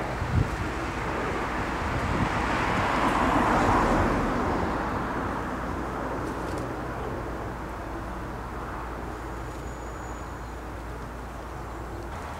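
Noise of a passing vehicle, swelling to a peak about three to four seconds in and then slowly fading, over a steady low rumble. A faint, brief high whistle comes near the end.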